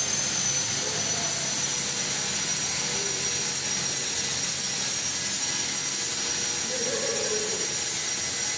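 Laser cutting machine and its cooling equipment running idle: a steady whooshing hiss with a constant high whine over it.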